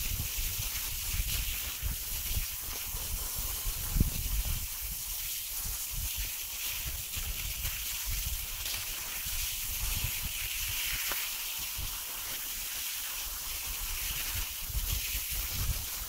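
Cross-country skis gliding along a snow track with a steady hiss, and wind buffeting the microphone in uneven low gusts. A single sharp knock comes about four seconds in.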